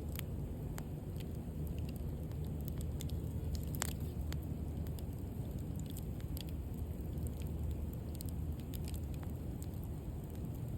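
Wood bonfire crackling, with irregular sharp pops and snaps, one louder about four seconds in, over a steady low rumble.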